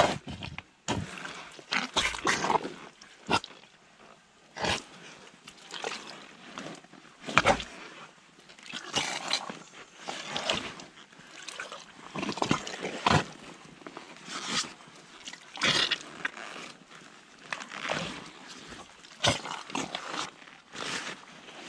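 Rubber boots treading in deep, sticky clay mud: irregular wet squelches, one every second or so, as the boots sink and pull free.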